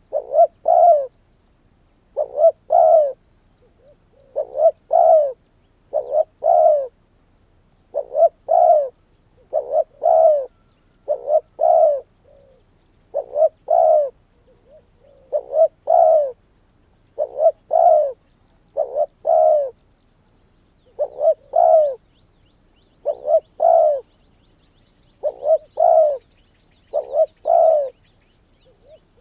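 Spotted dove cooing: a short phrase of two or three low coos, repeated about every two seconds. This is the male's territorial song, played as a decoy call to lure wild doves.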